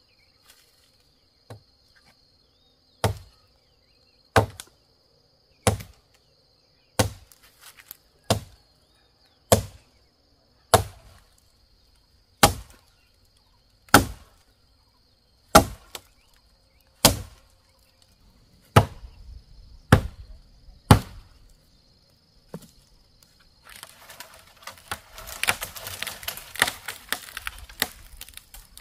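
Machete chopping into the base of a small tree trunk: about fifteen sharp, even strikes, one every second and a half or so, over a steady high insect drone. Near the end the chopping stops and a few seconds of dense rustling and crackling of leaves and brush follow.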